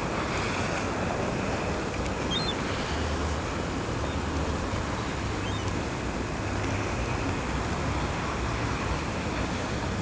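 Ocean surf washing steadily, with wind buffeting the microphone in uneven low rumbles.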